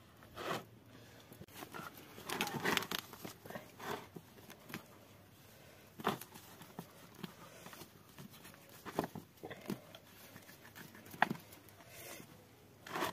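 Feathers being pulled by hand from slaughtered chicken carcasses over a plastic basin: irregular rustling and soft tearing, with scattered sharper snaps.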